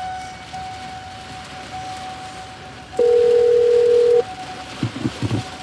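Telephone ringback tone: one steady ring lasting just over a second, heard partway through, over a steady background hiss. The call is ringing out before it goes to voicemail. A few soft low knocks follow near the end.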